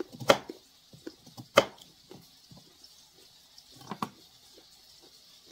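Kitchen knife chopping through carrot onto a cutting board: two sharp chops about a second and a half apart, with lighter taps between them and another knock about four seconds in.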